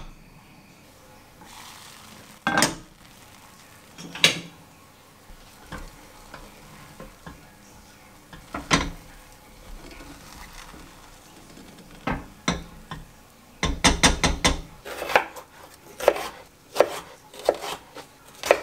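Kitchen handling sounds: a few separate clinks and knocks of a pot lid and utensils over a pot of cooked rice, then a chef's knife slicing cucumber into strips on a wooden cutting board, a quick run of knocks in the second half.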